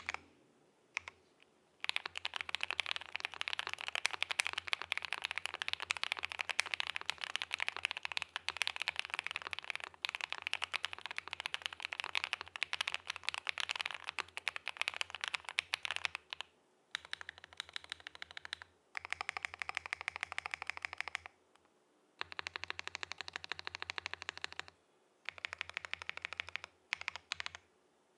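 Typing on a mechanical keyboard with lubed Akko Cream V3 Yellow linear switches in an aluminium Akko Mod005 with PBT keycaps. Fast, continuous clicking keystrokes run for about fourteen seconds, then shorter bursts broken by brief pauses.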